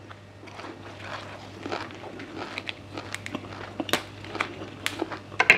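Close-miked chewing of a mouthful of miang kham with red ants: irregular crisp crunches, with sharper, louder ones in the second half.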